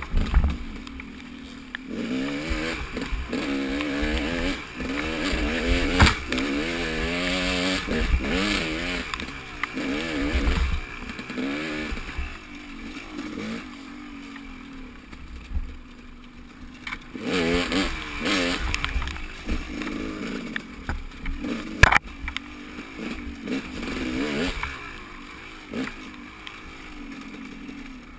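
A vehicle engine revving up and down repeatedly during a ride, with wind and road rumble underneath. A sharp click or knock sounds about two-thirds of the way through.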